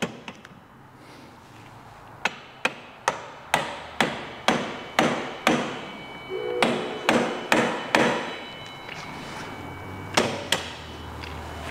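A mallet taps the steel front axle of a scooter, driving it through the fork and wheel hub: a steady series of sharp knocks, about two a second, for several seconds, then a short pause and two more knocks near the end.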